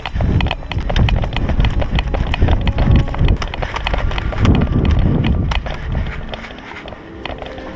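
Footsteps of a person running through long grass, heavy thuds with rustling, picked up close by a body-worn camera's microphone; the steps ease off near the end.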